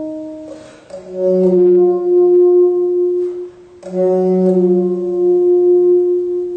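Solo alto saxophone playing two long held notes, one starting about a second in and one about four seconds in. Each note begins with a lower tone beneath it that fades away after a second or two, leaving the upper note sounding on.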